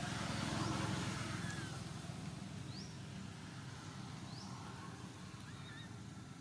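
Outdoor ambience: a low steady rumble that swells about a second in and then eases, with a few faint, short rising chirps high in pitch scattered through it.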